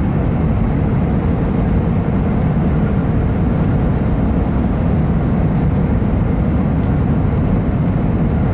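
Steady engine and airflow noise inside the cabin of an Airbus A320 airliner, a deep even rumble.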